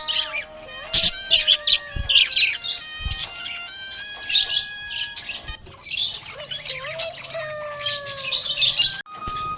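Budgerigars chirping and chattering in quick bursts, over a background melody of held tones.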